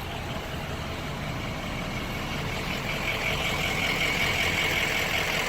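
Car engine idling steadily, with a hiss that grows louder over the second half.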